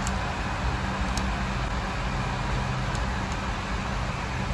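Steady low machine hum with an even hiss over it, and a few faint light ticks.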